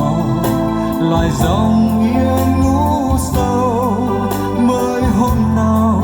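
Vietnamese ballad music from a CD playing through a Denon F102 mini stereo system: a passage with no sung words, with sustained organ-like keyboard chords, bass, a wavering melody line and regular drum hits.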